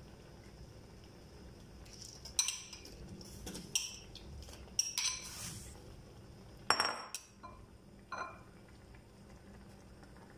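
Metal spoon clinking and scraping against a ceramic bowl as raw shrimp are pushed off it into a cooking pot: about six sharp clinks, the loudest a little past the middle.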